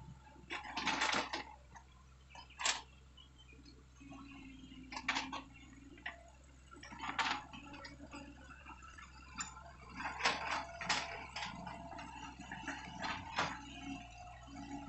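Excavators working a short way off: a low, steady diesel engine hum with irregular clanks and knocks as the machines move on their tracks and dig.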